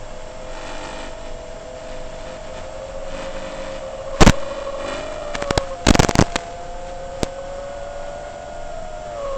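FPV quadcopter's brushless motors whining with a few close steady tones that drift up and down in pitch. A loud sharp crack comes a little past four seconds in, a quick cluster of cracks follows about two seconds in later, and a smaller one comes shortly after.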